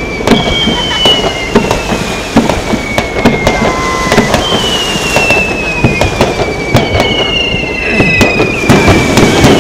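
Aerial fireworks bursting in quick succession, a string of sharp bangs. Over the bangs, several whistles each fall in pitch over about two seconds.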